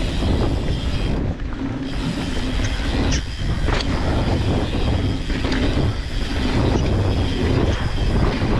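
Mountain bike riding fast down a dirt forest trail: steady tyre rumble on the dirt and rattling of the bike, with a few sharp knocks over bumps a few seconds in, and wind buffeting the camera microphone.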